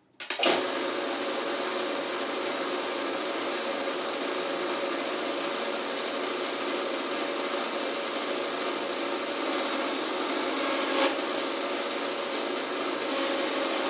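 Small belt-driven bench lathe running steadily while turning metal stock for steering rods: an even motor and cutting noise with a steady hum, and a single sharp click late on.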